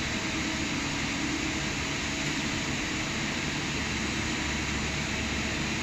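DMG MORI DMU 125 P duoBLOCK five-axis machining center running inside its closed enclosure: a steady mechanical hum with a constant hiss, even throughout, with no distinct knocks or cuts.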